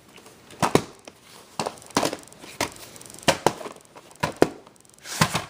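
VHS tape and its plastic case being handled and opened: a string of irregular sharp plastic clicks and knocks, about a dozen.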